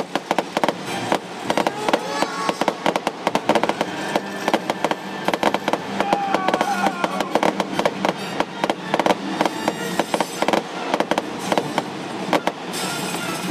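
Fireworks going off in a dense, irregular run of sharp pops and crackles, with music playing underneath. The crackling thins out near the end as the music comes up.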